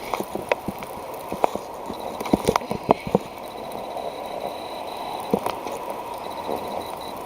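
Steady blizzard wind noise muffled by the plastic Tupperware tub around the camera, with irregular clicks and knocks against the plastic, busiest a couple of seconds in.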